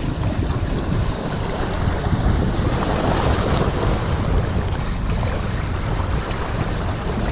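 Wind buffeting the microphone, a steady uneven low rumble, over small sea waves washing against shore rocks.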